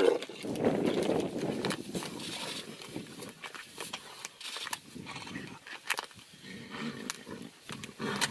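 Tigers snarling and growling while fighting, loudest in the first second or so and then continuing in rougher, quieter bursts.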